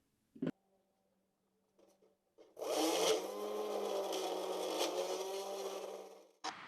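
A handheld power tool, a grinder or DA sander, starts about two and a half seconds in and runs steadily for about four seconds on a welded sheet-steel panel, then stops. A short click comes near the start, and another near the end.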